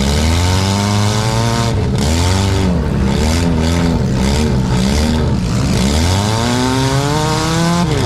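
Four-cylinder demolition derby car engine revving up and down again and again, with a long climb in pitch near the end.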